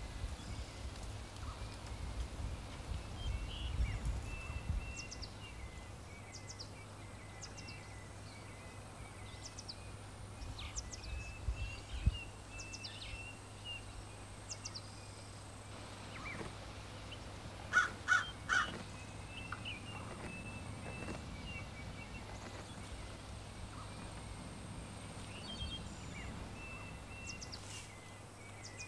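Woodland ambience: wild birds calling and chirping over a faint steady background, with two louder calls about eighteen seconds in.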